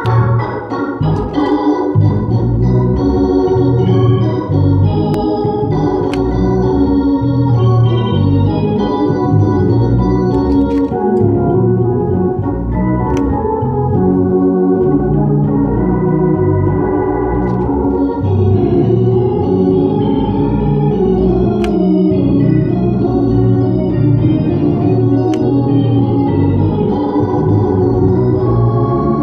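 Drawbar organ played with sustained full chords over a low bass, changing chords throughout, with a few sharp clicks now and then.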